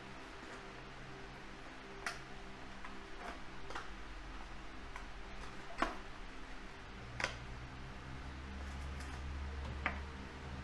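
Small cardboard boxes being handled on a desk: scattered light taps and clicks as the boxes are opened and set down, the loudest about six and seven seconds in, over a steady low hum.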